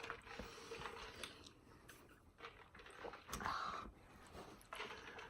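Faint eating sounds: soft chewing and small clicks from handling food, with a short louder noisy sound a little past three seconds in.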